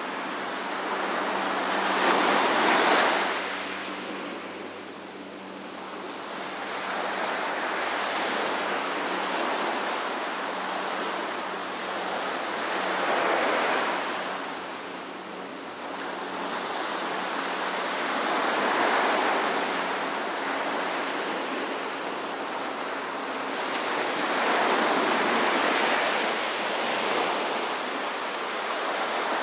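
Small Pacific Ocean waves breaking and washing up a sandy beach: a steady surf that swells into four louder surges several seconds apart, then fades back between them.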